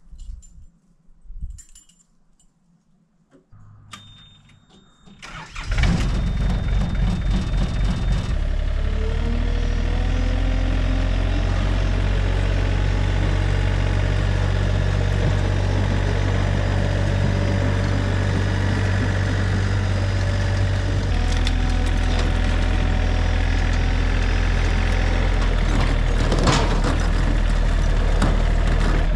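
Yanmar C30R crawler carrier's diesel engine being cranked and starting about five seconds in, after a few quiet clicks. It then runs steadily as the tracked carrier drives, its note shifting a little past the middle.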